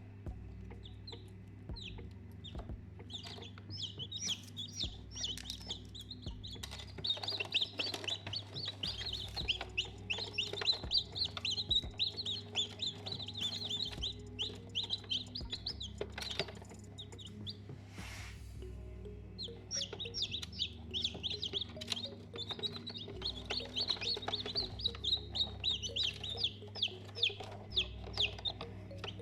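Baby chicks peeping, many short high chirps in quick succession, busiest in two long spells with a thinner patch a little past the middle.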